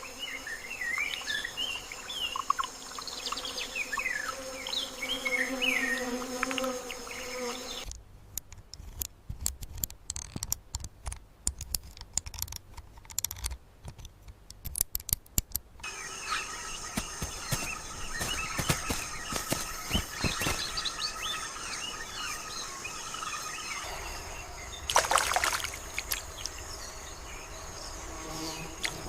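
Forest soundscape: a steady high-pitched insect drone with birds chirping. For about eight seconds in the middle this gives way to a run of sharp clicks and ticks, and a short loud buzzing burst comes near the end.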